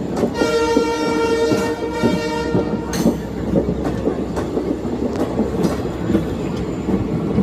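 Train horn blowing one steady blast of about two and a half seconds near the start, over the continuous rumble and irregular clatter of train wheels on the rails.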